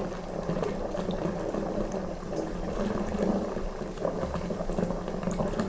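Bathwater running from a tap into a tub: a steady, loud rush of pouring and splashing water.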